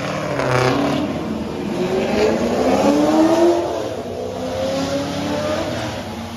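A car engine accelerating, its pitch climbing steadily, falling back at a gear change about three and a half seconds in, then climbing again.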